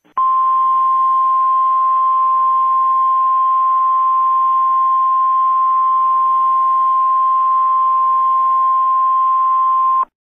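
Weather-radio warning alarm: one steady, loud single-pitched beep near 1 kHz held for about ten seconds over a radio-like hiss, starting and stopping abruptly. It is the alert tone that signals an urgent weather statement is about to be read.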